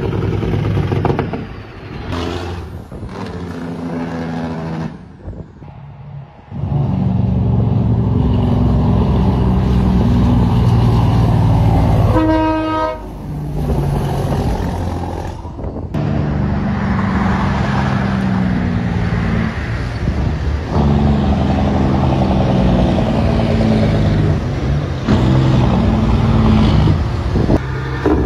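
Diesel engines of semi trucks running as the trucks drive past, heard in a run of short clips. A truck air horn sounds once for about a second near the middle.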